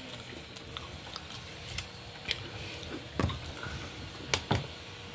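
A handful of light, scattered clicks and taps from a metal cookie-dough scoop working against a mixing bowl as dough is scooped out.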